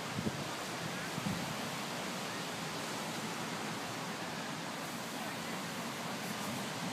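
Ocean surf breaking and washing onto a sandy beach, a steady, even rush of noise.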